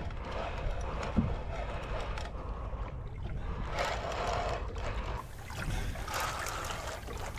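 Sea water lapping and trickling against the hull of a small boat, over a steady low rumble.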